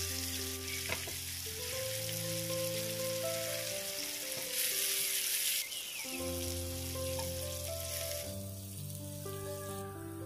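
Marinated chicken pieces sizzling as they fry in sunflower oil in a nonstick pan while being stirred and turned. The sizzle swells briefly about halfway and thins near the end. Background music of held chords plays underneath.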